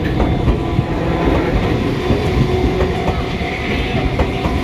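Enoden 1000-series electric train running past over a level crossing: a steady low rumble, with the wheels clicking now and then over rail joints.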